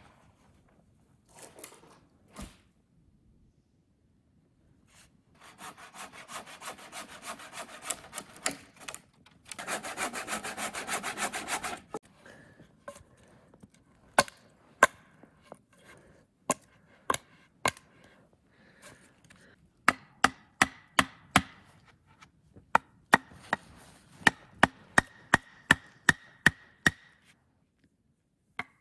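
A folding saw cutting wood in quick rasping strokes for several seconds, then sharp chopping strikes on a wooden pole, a few apart at first and then about two a second.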